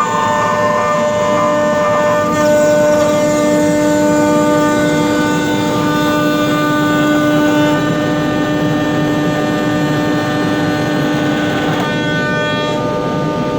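Five-axis CNC machine running a cut: a steady mechanical whine of several tones over a noise floor. The tones change about halfway through and again near the end, with a short glide, as the spindle and axis motors change speed.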